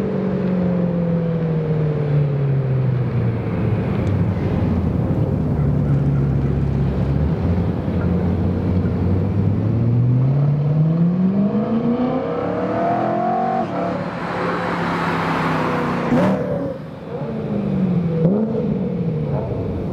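BMW E90 M3's V8 through a Laptorr aftermarket exhaust: engine pitch falls and settles, then climbs steadily under acceleration to a gear change about two-thirds of the way through, followed by a louder rushing stretch and several quick throttle blips near the end.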